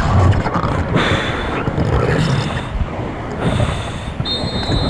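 Loud rushing white water of Grade 5 river rapids, a steady dense roar of water.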